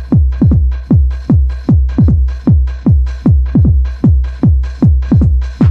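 Techno music driven by a hard kick drum beating about two and a half times a second. Each hit drops in pitch into a booming bass, with a faint steady high tone held above.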